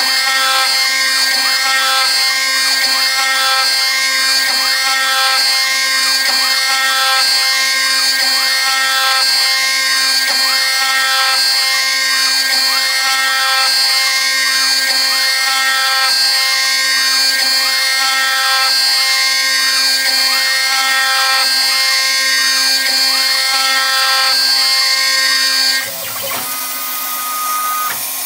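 CNC router spindle milling aluminium with a small end mill, conventional milling at 0.03 in (0.76 mm) depth of cut, over a wide hiss that is likely the air blast clearing chips. The cutting tone sweeps up and down about every second and a quarter as the tool circles the hole. About two seconds before the end, the cutting stops and the sound drops to a quieter steady whine.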